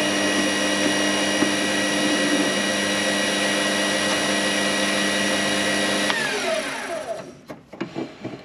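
Warco mini lathe running with a steady whine of several tones while centre drilling. About six seconds in it is switched off and the whine falls in pitch as the spindle spins down, followed by a few light knocks near the end.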